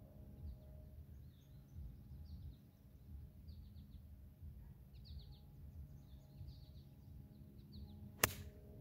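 A golf wedge strikes the ball once near the end with a sharp, crisp click. Birds chirp throughout.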